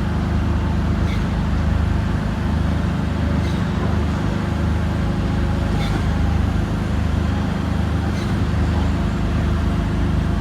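Diesel engine of a large tracked piling rig running steadily under hydraulic load, with a low pulsing drone, while the rig raises its drilling gear. A short high click repeats about every two and a half seconds.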